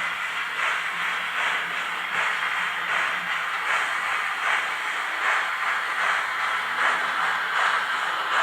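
Model steam locomotive's XP5.1 sound decoder playing steam chuffs through its small speaker: an even, hissy chuff a little faster than once a second.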